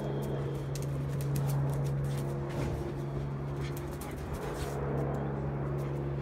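A steady low hum, with scattered light clicks of dogs' claws on a tiled floor as two dogs play.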